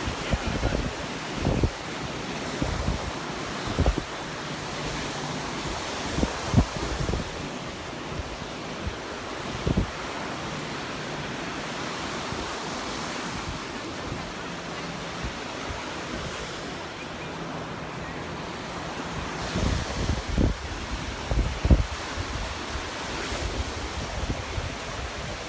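Surf washing onto the beach as a steady wash, with gusts of wind buffeting the microphone in irregular low thumps, strongest about twenty seconds in.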